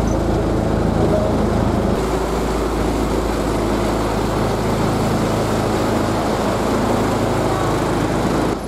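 Engine of the Kiha 1 railcar running steadily inside the car, its low note shifting about two seconds in. The sound drops away abruptly at the very end.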